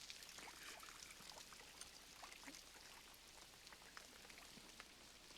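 Steady rain falling on a film soundtrack, faint, with scattered small spatters of drops.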